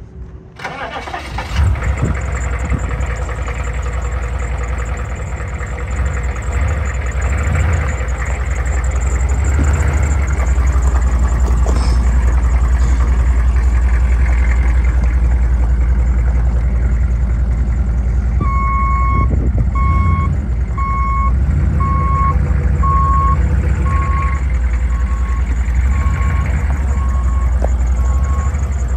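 1995 GMC 3500's 6.5-litre turbo-diesel V8 idling steadily. From about two-thirds of the way through, a repeating beep sounds roughly every 0.7 seconds, slowly fading.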